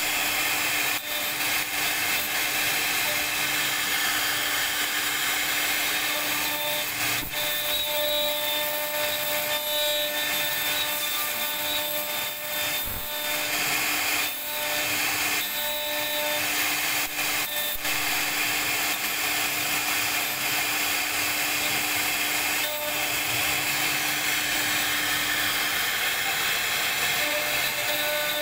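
CNC router spindle carving a relief pattern into a wooden panel, the bit cutting steadily: a constant whine over the hiss of wood being cut.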